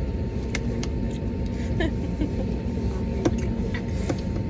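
Steady airliner cabin noise: a constant low engine and air-system rumble with a faint steady tone running through it, and scattered small clicks and taps close by.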